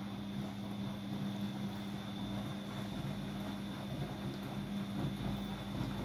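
Front-loading washing machine on a fast spin, its drum turning at speed with a steady motor hum and a thin high whine.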